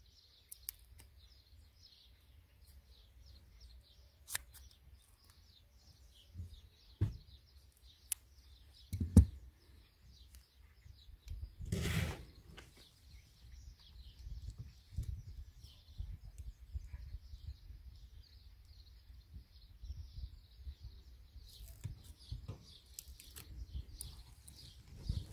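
Birds chirping continuously in the background over a low rumble, with scattered clicks and knocks from hands handling tape, scissors and wiring in a car boot; the loudest knocks come about a third of the way and about halfway through.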